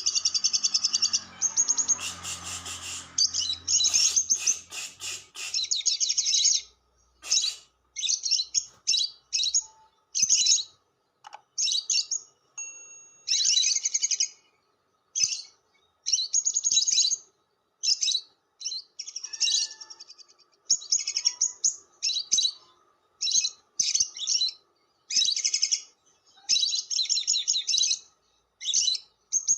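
Lovebird chattering in shrill, rapid chirps, nearly unbroken for the first six seconds, then in bursts of about half a second to a second with short pauses between.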